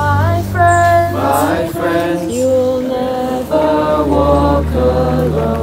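Background music: a choir of voices singing long held notes, some gliding between pitches, over a steady low drone.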